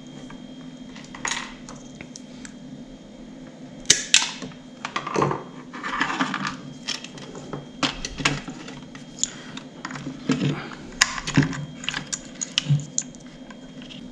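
Scattered small clicks, taps and short scrapes of hands working wires, crimp terminals and the plastic housing of a clothes iron during a cord replacement, over a steady low hum.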